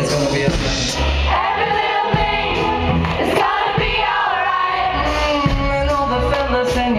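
Live band playing with several voices singing together over a steady bass line.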